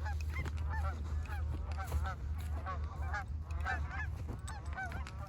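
A flock of geese honking, many short calls overlapping several times a second, over a steady low rumble.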